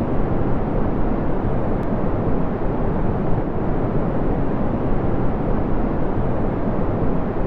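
A jet fighter's engine running, heard as a steady, deep rushing noise that holds the same level and pitch throughout.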